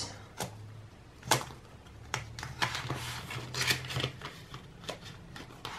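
Paper dollar bills and a clear plastic binder envelope rustling as they are handled, in a string of short crinkles and snaps.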